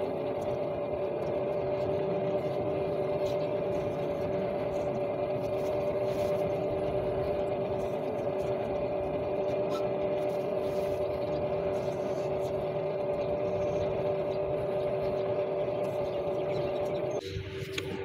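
Steady hum of a motor-driven potter's wheel spinning at constant speed, with two held tones that do not change in pitch, cutting off about seventeen seconds in.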